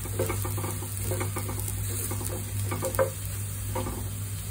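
Wooden spatula stirring and scraping minced garlic in hot oil in a nonstick pan, with irregular short taps and a light sizzle as the garlic fries toward light golden brown. A steady low hum runs underneath.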